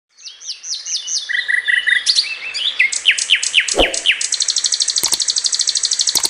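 Birdsong: quick repeated falling chirps that run into a fast, steady trill about four seconds in. There is a thump just before that, and two sharp clicks near the end like a mouse-click sound effect.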